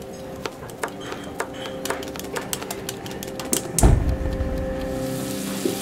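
A kitchen knife chopping on a wooden cutting board, a run of sharp knocks about two a second. About four seconds in, a gas cooktop burner lights with a loud low whoosh, then burns with a steady hiss.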